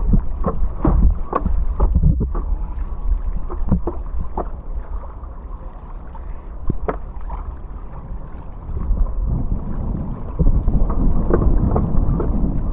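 Wind rumbling over the microphone with splashing and knocking water at speed on a downwind foilboard, easing a little midway and picking up again after about nine seconds.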